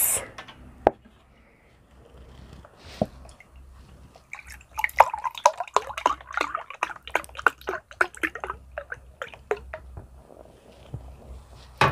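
Milk drink being handled and poured: a dense run of quick wet clicks and drips from about four seconds in, after a couple of single taps.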